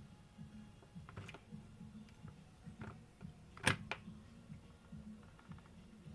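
A few small clicks and taps, the loudest one sharp click a little past halfway, over a low unsteady hum.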